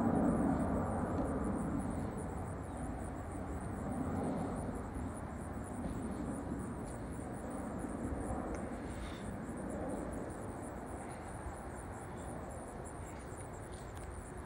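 Jet engine rumble of a Boeing 767-300F twin-engine freighter passing overhead on approach, slowly fading as the aircraft moves away.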